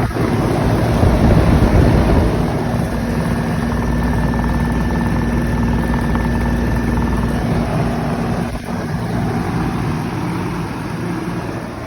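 2002 Lennox Elite 2-ton central air conditioner outdoor unit running: its Copeland reciprocating compressor hums steadily under the whoosh of the condenser fan.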